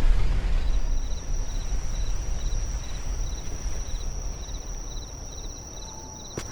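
Night-time insect ambience: crickets chirping in short pulsed bursts about every half second over a steady high insect trill, with a low rumble fading away in the background.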